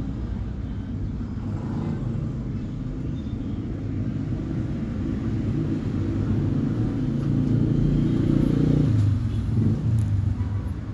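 Steady low background rumble, growing louder about seven to nine seconds in and easing near the end.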